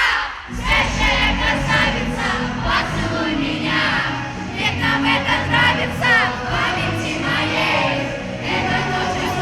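Live pop music with a steady beat, a large crowd singing along in many voices over it. The bass drops out briefly at the start and comes back in about half a second in.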